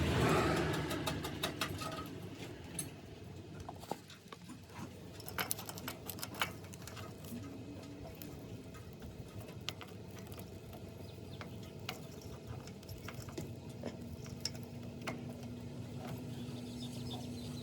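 Scattered small clicks, taps and rustles of tools and metal parts being handled, over a faint steady hum.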